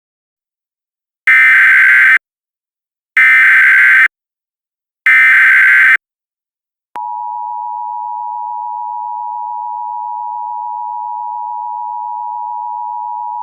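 Emergency Alert System alert opening: three short digital data bursts of the SAME header, about a second each and evenly spaced, then the steady two-tone attention signal starting about seven seconds in.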